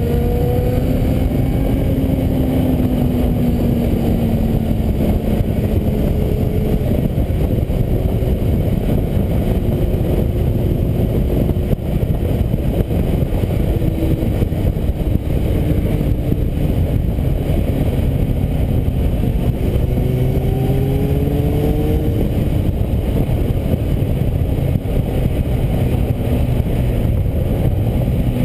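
Kawasaki Z750's inline-four through an aftermarket Scorpion exhaust, heard at highway speed under heavy wind noise on the bike-mounted camera. The engine note rises at the start, falls away over the next few seconds, and rises again about two-thirds of the way in.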